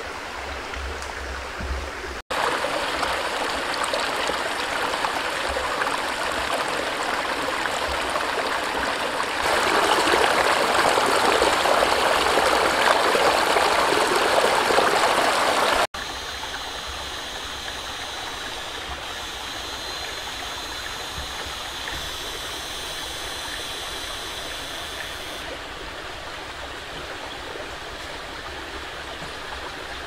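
Steady rushing of a stream, with two abrupt edit cuts. It is loudest for several seconds in the middle, then quieter.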